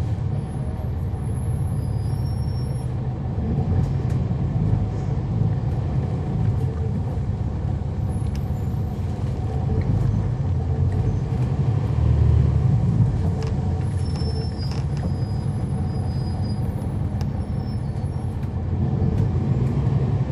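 On board a 2011 NABI 40-SFW transit bus under way: its Cummins ISL9 inline-six diesel runs with a steady low rumble and a faint whine from the ZF Ecolife 6AP-1400B automatic transmission. A few faint high-pitched squeaks come and go.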